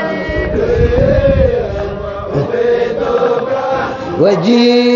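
Men's voices chanting a Qadiriya Sufi dhikr in Arabic, drawing out long held notes; a new held note starts about four seconds in.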